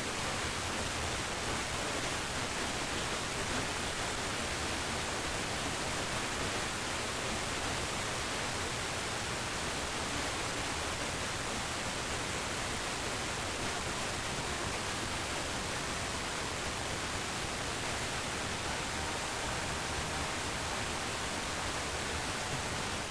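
Steady hiss of radio static from a radio receiver, an even noise with no tones or voice in it.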